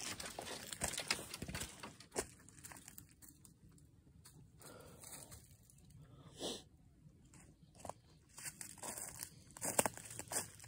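Irregular crunching and rustling in dry leaves and brush, dense for the first couple of seconds, then sparse, with another cluster near the end.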